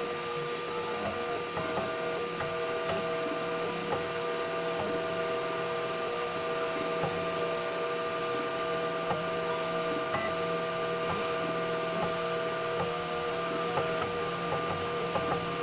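3D printer running, its stepper motors whining in several steady tones that shift up and down in pitch every second or so, with faint clicks.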